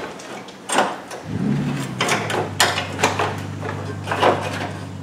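Knocks and clatter of a plastic-and-metal front-end bracket being handled and seated onto a car's front support, about five separate hits. A low steady hum sets in about a second in and carries on under them.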